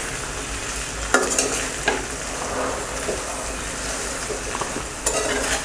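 Sliced okra, garlic and spices frying in mustard oil in a metal karahi, a steady sizzle, while a metal spatula stirs and scrapes through them, with a few louder scrapes against the pan.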